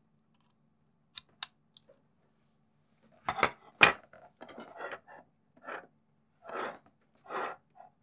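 Handling of a StarTech dual mSATA adapter card as a SATA-to-USB bridge board is pushed onto its SATA connector and the card is set down on a wooden desk. It starts with a few small clicks, then two sharp clacks a little past three seconds in, then short scrapes and rustles of the card and cable being moved.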